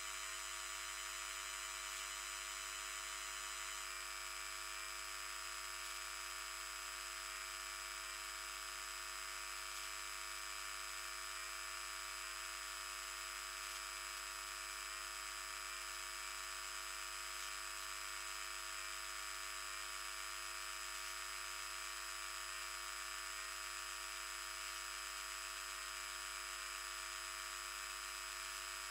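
High-pass-filtered 50 Hz mains grid voltage played as audio: a dense, steady buzz of higher-order harmonics, heavy with harmonic noise from something connected to the grid. About four seconds in, the sound changes abruptly as some of the higher tones drop out.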